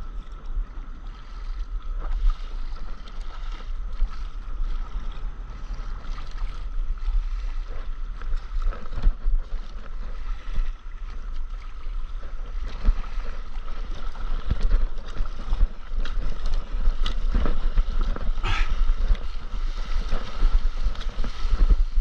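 Wind buffeting an action camera's microphone just above the sea surface, with seawater splashing and lapping against a stand-up paddleboard in irregular bursts.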